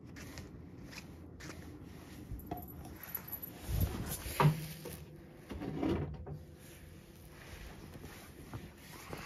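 Handling knocks and clatters of household objects, like a wooden drawer or cupboard door, against a low room background. There is a thud, then a sharp knock about four and a half seconds in, which is the loudest, and a few smaller knocks about a second later.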